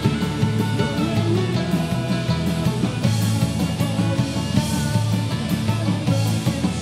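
Celtic punk band playing live: electric guitar, bass guitar, drums and electric fiddle together in a loud, driving rock passage.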